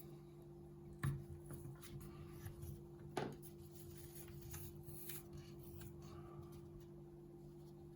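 Faint rubbing and a few light clicks of hands peeling up and repositioning the adhesive base pad on the bottom of an Amazon Echo smart speaker so that it sits flat, over a steady low hum.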